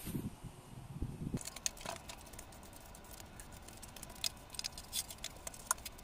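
A broom's bristles swept across the floor in short strokes, making soft, irregular scratchy ticks and scuffs. A couple of soft thumps come in the first second or so.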